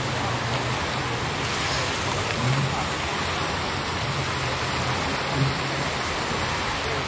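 Steady rushing seaside ambience, with a faint low hum that comes and goes.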